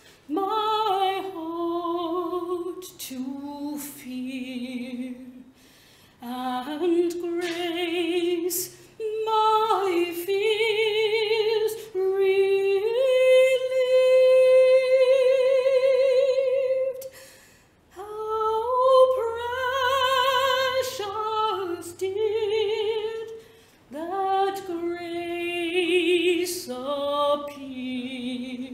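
A woman singing a slow song in phrases, with vibrato and short breaths between the lines. She holds one long note for about four seconds midway through.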